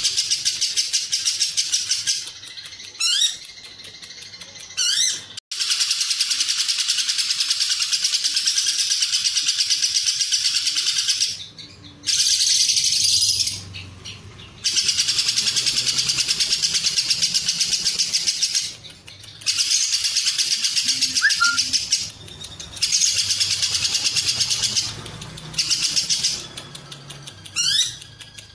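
Lovebird 'ngekek': long runs of rapid, high chattering trill lasting several seconds each, broken by short pauses, with a few quick rising whistle-like sweeps between runs.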